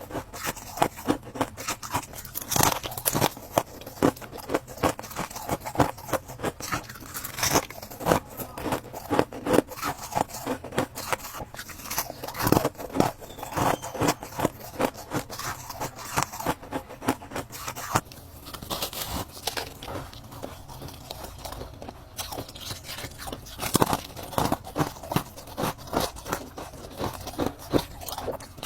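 Ice being bitten and chewed close to the microphone: a dense run of sharp, crackling crunches, several a second, thinning out for a few seconds past the middle before picking up again.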